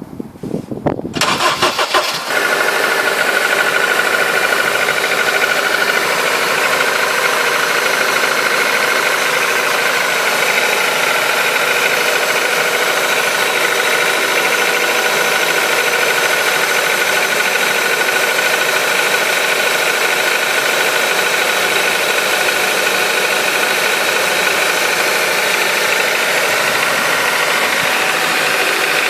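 Honda K20A four-cylinder engine cranked by the starter for about two seconds, catching and then idling steadily from cold. The engine has a knock that the owner hears on a cold start and that dies away as it warms up.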